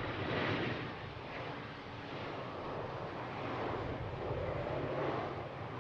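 Embraer E-Jet regional jet's turbofan engines running: a steady rushing jet noise with a faint high whine near the start.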